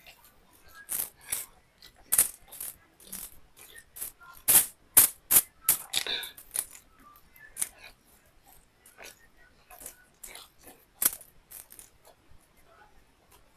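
Close-miked eating sounds: a person chewing beef liver and rice, with an irregular run of short, sharp wet mouth clicks and smacks, loudest about halfway through.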